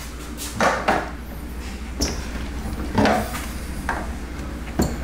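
A few light knocks and handling sounds as a small torpedo level is set and held against the edge of a dishwasher.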